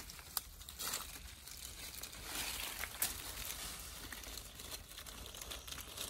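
Dry leaves and debris crackling and rustling as hands pull them out of a hollow in a tree trunk, with a couple of sharp snaps.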